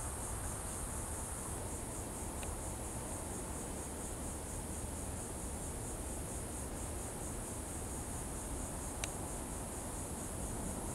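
A steady, high-pitched chorus of insects, continuous and unchanging.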